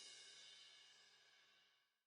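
The final cymbal of a drum-backed music track ringing out faintly and fading away to silence.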